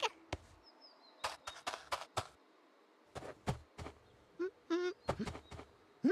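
Small stones clicking and knocking together as they are stacked, in little clusters of two to four knocks. A few short pitched squeaks come in near the end.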